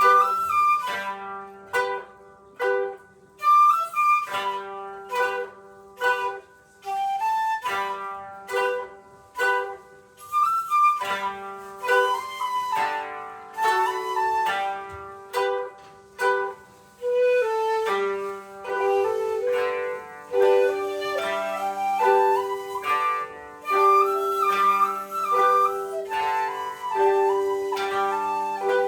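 Japanese chamber music: koto (Japanese zither) strings plucked in quick repeated notes under a shakuhachi bamboo flute playing held melodic notes.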